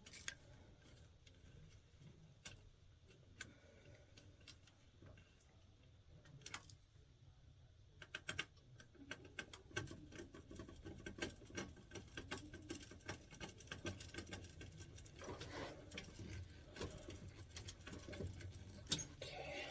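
Faint clicking and scratching of small hand work on wiring: low-voltage wires being fed onto a furnace control board's screw terminals and handled. The clicks are sparse at first and grow into a dense run of scratching and clicking after about eight seconds.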